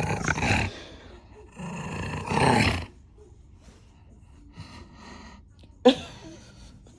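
English bulldog puppy growling in play with a rubber ring toy in its mouth. There are two loud rough growls in the first three seconds, then fainter ones, and a short sharp noise about six seconds in.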